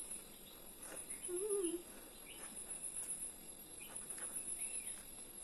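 Quiet outdoor ambience: a steady high-pitched insect drone, with a few short bird chirps and faint taps. About a second and a half in there is a brief wavering low hum.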